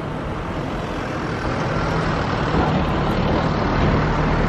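A motor vehicle engine idling close by: a steady low hum with road-traffic noise behind it.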